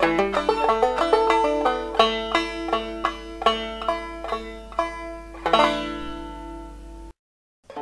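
Instrumental background music of quick plucked-string notes, ending on a chord about five and a half seconds in that rings and fades. It cuts to silence near the end.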